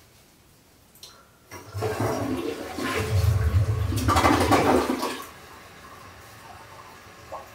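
Toilet flushing: a loud rush of water swirling down the bowl starts about a second and a half in and lasts about three and a half seconds, then settles to a quieter steady hiss of the toilet refilling.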